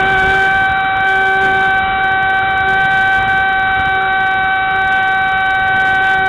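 Radio-controlled model aeroplane's motor and propeller, heard from a camera mounted on the plane, running at steady throttle with a constant high whine.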